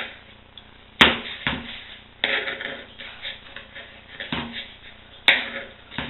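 Kitchen knife chopping fresh parsley on a plastic cutting board: irregular sharp knocks of the blade on the board, some single and some in a quick run of lighter chops.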